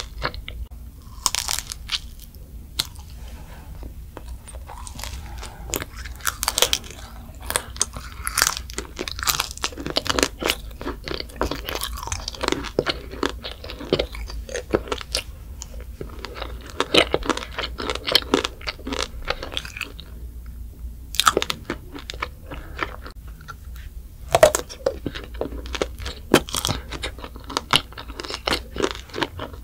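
A child biting and chewing a candied macaron: the hard sugar-glaze shell cracks and crunches in quick irregular clicks, with brief pauses between bites.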